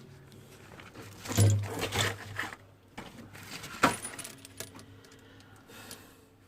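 Light clinks and knocks of small hard objects being handled, with one sharp click about four seconds in.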